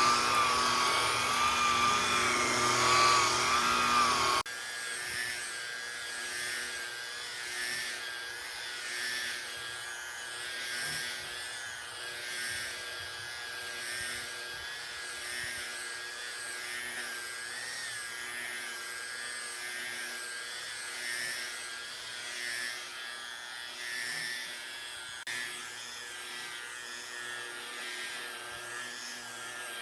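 A power tool running with a wavering whine, loud at first; about four seconds in it cuts off abruptly to a quieter, steady machine whine.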